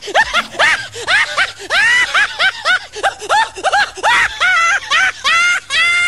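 Young parrots calling: a rapid string of short squawks that each rise and fall in pitch, about three a second, ending in one longer held call near the end.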